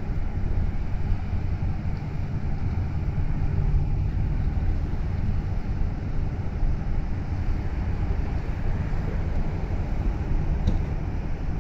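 Low, steady rumble of an Ishizaki Kisen car ferry's diesel engines as it passes under way, mixed with wind buffeting the microphone.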